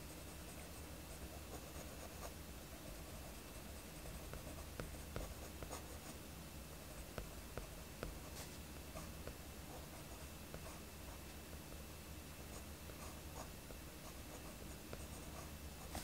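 Mechanical pencil scratching on sketchbook paper in short, light strokes, with small scattered ticks as the lead touches down, over a faint steady room hum.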